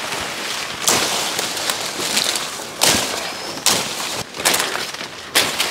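Leafy plants rustling and scraping close by as they are cut back, with four louder swishes.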